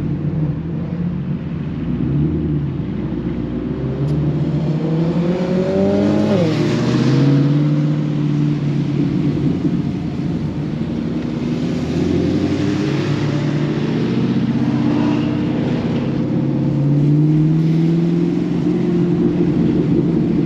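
Several performance cars' engines accelerating and revving in a group on a wet road. The engine pitch climbs and drops sharply about seven seconds in, as at a gear change, and more pulls follow later. Hiss from the wet road runs under the engines.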